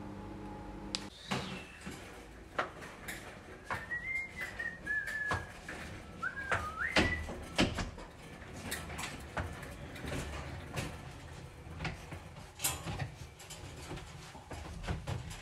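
Wire dog crate clinking and rattling in short knocks as hands work its bars and door, with a puppy inside. Two high, thin, wavering tones come over the rattling, one about four seconds in and a rising one about six seconds in.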